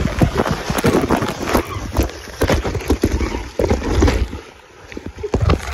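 Water splashing and sloshing close to a camera held in and just under the water while someone swims, with a rapid run of irregular muffled knocks and thuds. It eases off about four seconds in, then starts again near the end.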